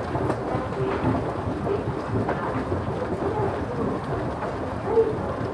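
Department-store escalator running: a steady low rumble from its electric drive under a dense wash of hall noise, with a few light clicks and knocks.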